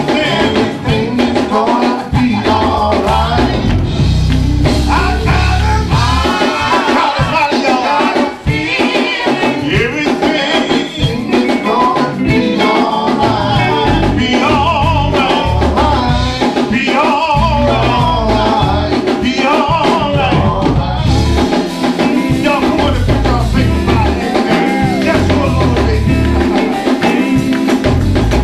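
Live gospel music: a male lead singer on a microphone over a church band, with strong bass notes underneath.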